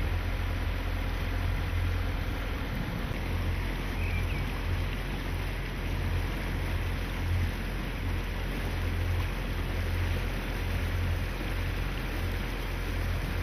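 A motorboat's engine running steadily while cruising, heard from on board: a constant low drone with water and wind noise over it.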